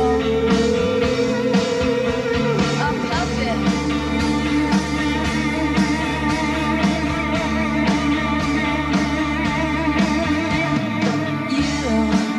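Live rock band playing: electric guitars over drums keeping a steady beat.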